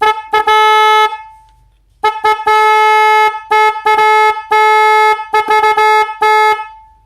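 RWB CS-A047 12-volt snail-type car horn sounded on the bench in a run of short toots and blasts of up to a second, a steady bright pitch, loud. There is a pause of about a second near the start before the longer run.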